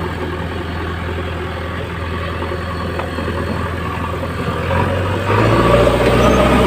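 Diesel engine of a JCB earthmoving machine running steadily, then getting louder about five seconds in as it revs up.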